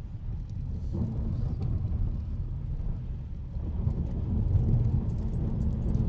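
A Hyundai car driving, heard from inside the cabin: a steady low rumble of tyres and engine on an icy, snowy road, with faint scattered clicks and crackles, swelling a little about four seconds in.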